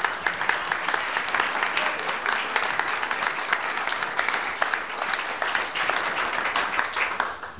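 A room of guests applauding, many hands clapping densely and evenly, thinning out near the end.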